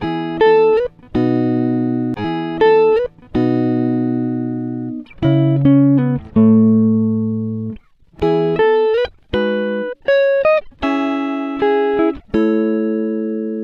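Background music: a plucked string instrument playing single notes and short phrases, each note ringing out and fading, some sliding up in pitch.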